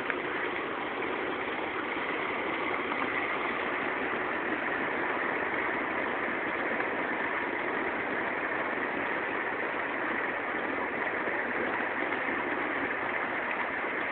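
Steady running noise of a small vehicle in motion: an even rushing hiss with no beat or chuff.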